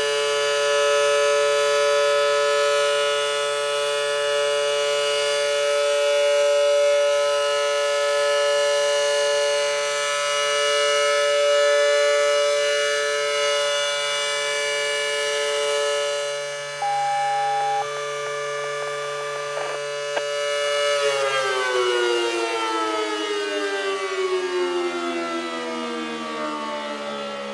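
Federal Signal Model 5BT rotating dual-tone siren sounding a steady alert, its loudness swelling and fading slowly. About 21 seconds in it shuts off and winds down, its chord sliding steadily lower in pitch.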